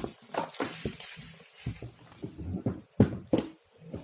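Irregular knocks, clicks and rustling as a pressure washer's plastic body and its packaging are handled and unpacked from the box.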